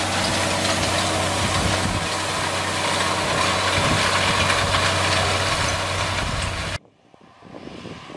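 John Deere 6520 tractor's diesel engine running steadily as it works the field with a stubble cultivator. About seven seconds in the sound cuts off abruptly, leaving only a much fainter background.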